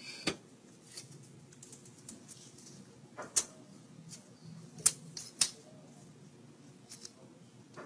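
Low steady room noise broken by a handful of sharp, isolated clicks or taps. The loudest fall about three and a half, five and five and a half seconds in.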